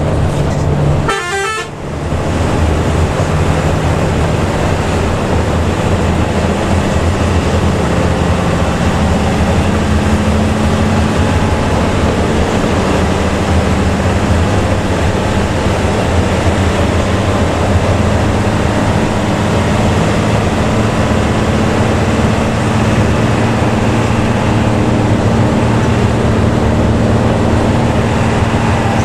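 Intercity bus engine and exhaust running steadily under way, its low drone stepping up in pitch partway through as engine speed changes. About a second in, a brief descending run of chirping tones.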